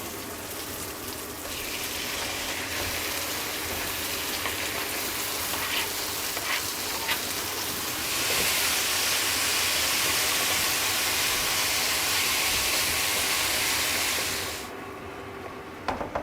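Diced chicken sizzling as it fries in a hot pan. The sizzle grows louder about a second and a half in and again about halfway through, with a few light clicks, then dies down sharply near the end.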